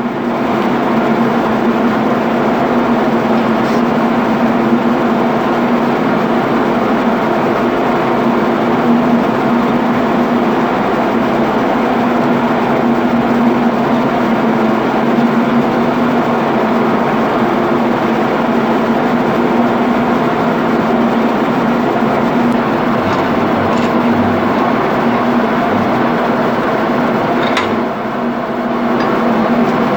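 Steady drone of running ship's engine-room machinery with a constant hum, unchanging throughout; a few faint knocks near the end.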